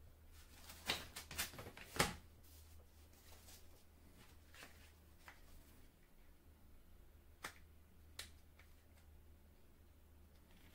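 Clicks and light knocks of hard plastic as the parts of an Oregon face-shield headgear with earmuffs are handled and fitted together. A quick run of clicks comes in the first two seconds, the loudest near the end of that run, then a few single clicks follow.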